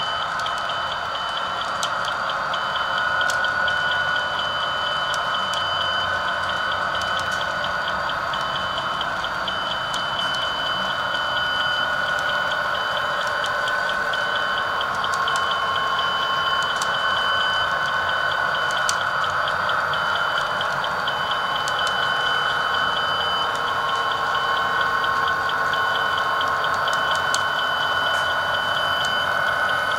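Model grade-crossing bell ringing in a fast, even ding, over the steady running noise of HO-scale coal hopper cars rolling along the track, with a few short clicks.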